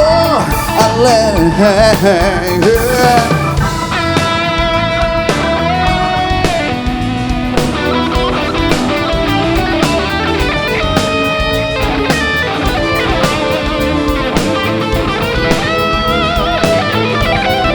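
Live band playing an instrumental break: an electric guitar lead, its notes bent and wavering for the first few seconds and then held steadier, over a steady drum beat.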